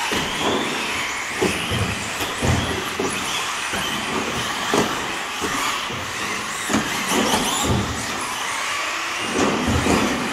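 Electric RC buggies running on a carpet track: brushless motors whining up and down in pitch with the throttle, with sharp thuds every second or two as the cars hit the carpet off the jumps.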